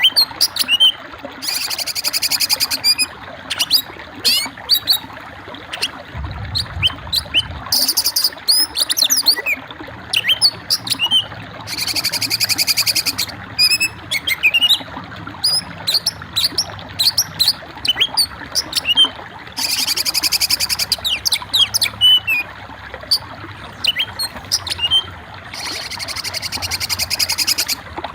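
Songbirds chirping and whistling in quick short notes, broken five times by a fast, high trill lasting a second or two.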